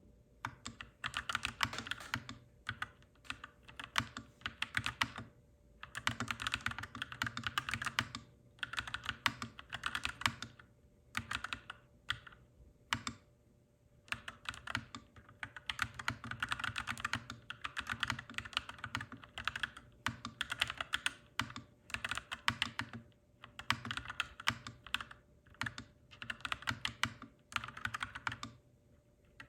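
Clacky mechanical keyboard being typed on in fast bursts of a second or a few seconds, with short pauses between them.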